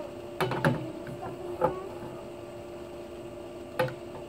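A few short knocks and clatters of a telescopic pool-skimmer pole being handled, three close together in the first two seconds and one more near the end, over a steady low hum.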